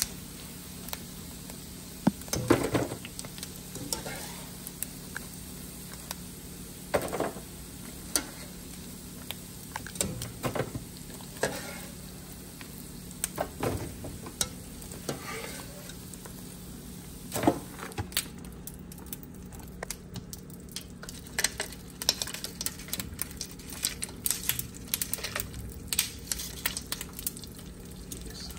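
Pork skin pellets deep-frying in hot oil: a steady sizzle, with the clink and scrape of a wire spider skimmer stirring them every second or two. The crackling grows denser in the second half.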